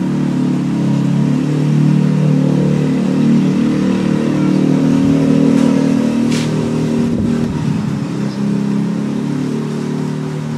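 A steady engine drone with a stack of low tones that drift slightly up and down in pitch, and a couple of sharp clicks about the middle.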